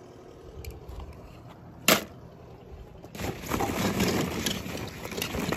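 Toy cars being handled: a sharp knock about two seconds in, then a few seconds of rattling, scraping noise.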